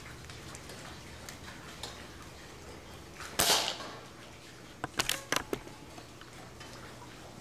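Benjamin Woods Walker precharged pneumatic airgun firing once, a short sharp report about three and a half seconds in. A quick run of several sharp clicks follows about a second and a half later.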